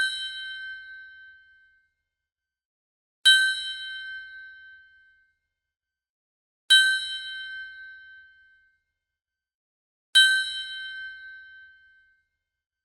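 Bell-like ding sound effect: a bright metallic strike that rings out for over a second, repeated at an even pace about every three and a half seconds, three new strikes after the ringing of one just before.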